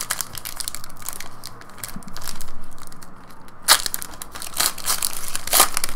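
Foil wrapper of a 2015 Panini Select Soccer card pack crinkling and tearing as it is ripped open by hand, with louder sharp crackles about two-thirds of the way in and again near the end.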